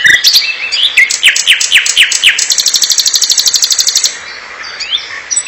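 Common nightingale singing: a run of falling whistled notes, about five a second, then a fast rattling trill of rapidly repeated notes lasting under two seconds. A quieter pause follows before the next phrase begins at the very end.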